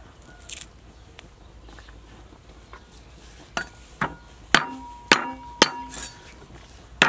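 Six hard knocks in kitchen food preparation, starting a few seconds in at about two a second, with a pause before the last. Each knock leaves a short ringing tone.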